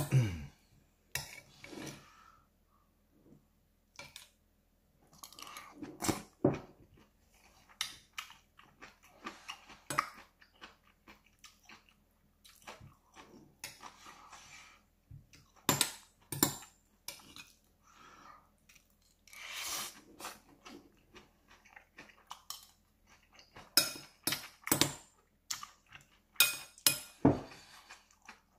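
Close-miked chewing of a rice bowl with braised pork belly and lightly cooked, crunchy onion, with a metal spoon clicking and scraping against a ceramic bowl in many sharp strikes.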